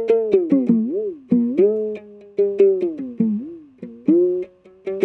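A one-string drum, a string drawn through a hole in a goat-skin head and held taut by a stick, plucked with a plectrum in a quick rhythm of about four notes a second. The string and skin sound together in a twanging, drum-like tone, and the pitch bends down and back up as the stick tightens and slackens the string.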